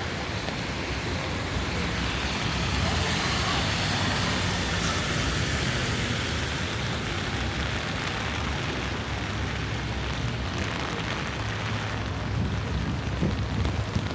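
Rain falling on a wet city street with traffic running, a low engine hum swelling over the first few seconds and easing off.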